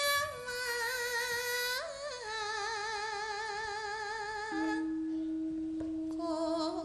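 A woman singing solo into a microphone in Javanese style: long held notes with a wide, wavering vibrato that slide from pitch to pitch. About two-thirds of the way through, a steady lower note joins underneath the voice.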